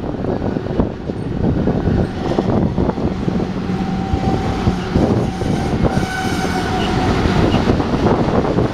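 BNSF double-stack container cars rolling past, wheels clicking and knocking over the rail joints. A thin, steady high squeal comes in about four seconds in and fades out near seven seconds.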